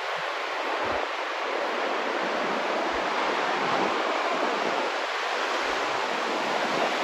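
Big Atlantic ocean surf: a steady, dense rush of breaking waves.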